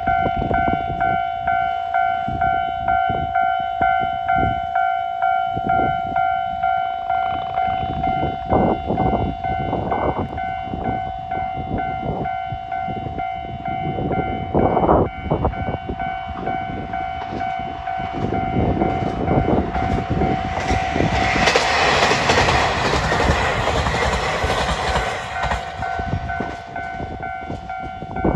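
Japanese level-crossing warning bell ringing with a steady, regular beat while a diesel train passes over the crossing: wheels knock over the rail joints, then a loud rush of train noise for several seconds that fades near the end, the bell ringing on.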